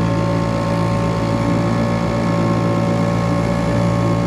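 Small boat's outboard motor running steadily under way, its engine note even with no change in speed.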